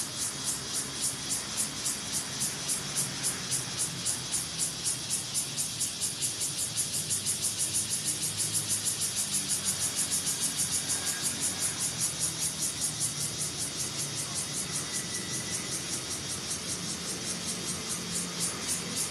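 Insects buzzing in a steady high-pitched pulse, about three pulses a second, with a faint low hum underneath.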